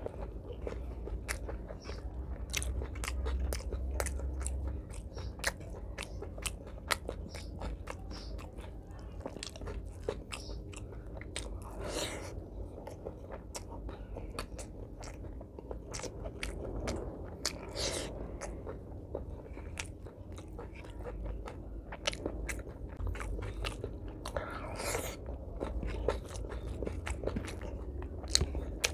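Close-miked eating sounds: a man chewing mouthfuls of rice and mutton curry, with many sharp, wet mouth clicks and smacks at an irregular pace.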